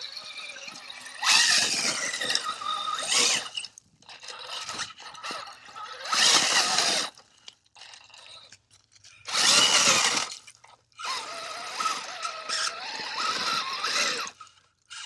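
Axial SCX6 electric RC crawler driving over quarry rock in several throttle bursts with short pauses between. The motor and drivetrain whine, changing pitch with speed, over the crunch and clatter of rock under the tyres.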